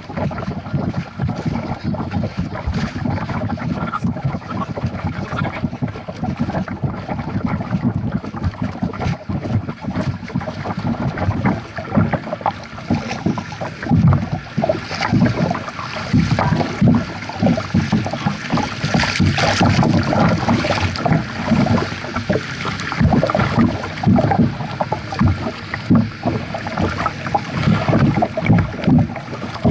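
Lake water lapping and splashing against a kayak's hull and the action camera mounted just above the waterline, with wind on the microphone. The splashing comes in irregular surges that grow louder and more frequent about halfway through.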